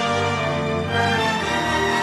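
Orchestral theme music with slow, held chords.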